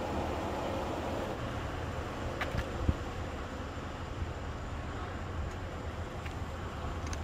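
Street ambience: a steady low rumble of idling vehicles, with a couple of short clicks around two and a half to three seconds in.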